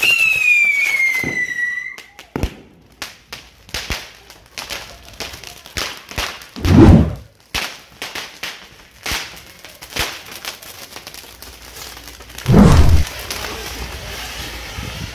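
Fireworks on a torito, a bull-shaped frame of fireworks carried by a person, going off. A high whistle falls in pitch over the first two seconds, then comes a scatter of sharp firecracker pops and crackles, with two louder, deeper blasts about seven and twelve and a half seconds in.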